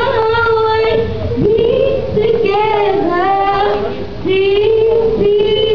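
A young woman singing solo into a microphone, a slow melody of long held notes with short breaks between phrases.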